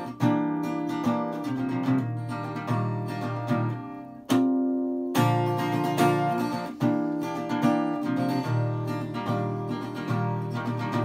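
Acoustic guitar strummed in a slow, steady rhythm, the instrumental opening of a plaintive indie-style ballad; about four seconds in the strumming pauses while a single low chord rings on, then resumes.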